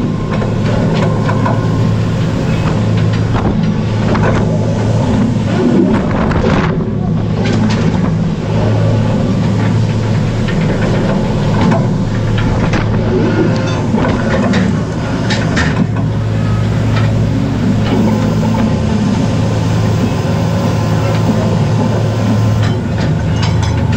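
Fishing boat's engine and deck machinery running with a steady low drone. Scattered knocks and clanks come as a steel-mesh crab pot is hauled over the rail and set down on the deck.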